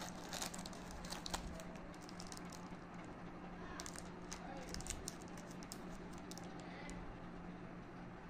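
Crinkling and sharp clicks of a foil-laminate chocolate bar wrapper and its cardboard carton being handled, as a Nestlé Munch bar is pulled from the torn box. The clicks come in two flurries, in the first second or so and again around four to five seconds in, over a faint steady hum.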